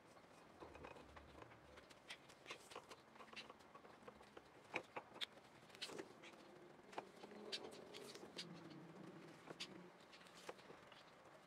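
Faint, irregular small clicks and rustles of paracord being wrapped and pulled around a steel knife tang by gloved hands.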